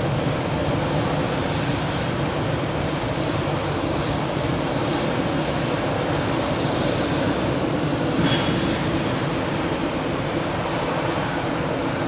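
Jet engines of an Airbus A319 airliner running, a loud, steady drone with a low hum.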